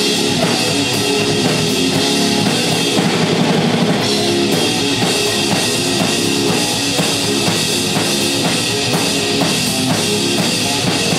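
Live metal band playing loudly: electric guitar and bass guitar over a driving drum kit.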